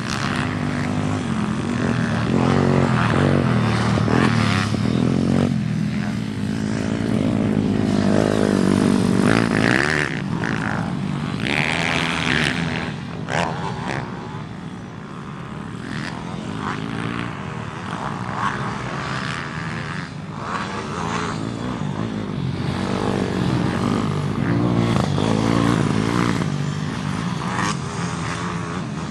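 Single-cylinder pit bike engines revving up and down on a dirt motocross track, the pitch rising and falling with each throttle change and gear shift. The sound swells and fades as the bikes come nearer and move away, quietest about halfway through.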